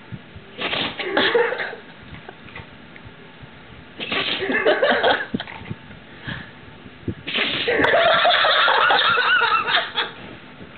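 A dog sneezing, set off by having its nose rubbed, amid three bursts of people laughing; the longest laughter comes in the last few seconds.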